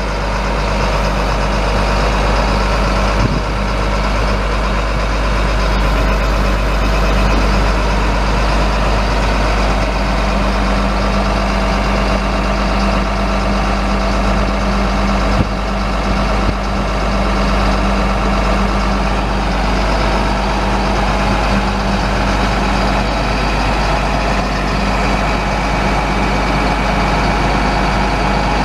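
Caterpillar 3126 7.2-litre inline-six turbo diesel in a Chevrolet C7500 truck, running steadily at idle.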